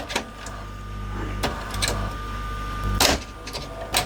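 LG VCR's tape loading mechanism running: a steady motor hum broken by several sharp clicks as it fails to eject the tape.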